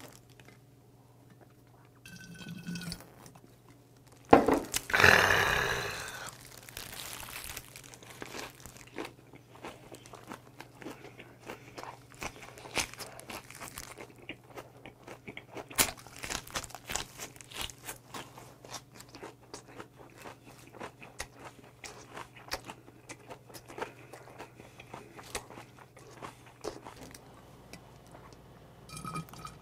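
Close-miked chewing of a salted napa cabbage wrap with raw oysters and boiled pork: wet, crunchy mouth sounds with many small irregular clicks, and a louder burst about five seconds in.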